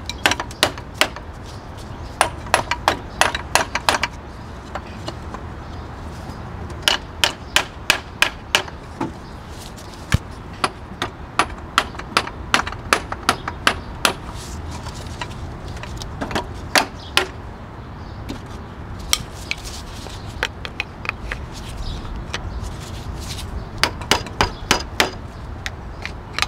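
Hammer blows on the water pump of a BMW E36 engine, knocking the loosened pump free of the block. The blows come in quick runs of several strikes, with short pauses between the runs.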